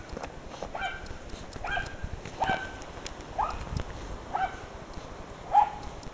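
Seven-week-old Dalmatian puppy yipping, short high-pitched yelps repeated about once a second, the loudest about five and a half seconds in, with light clicks and rustles between them.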